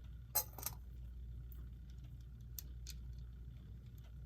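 Handling clicks from a quartz alarm clock movement while its time is being set: a sharp, brief rattling click about half a second in, then a few faint clicks.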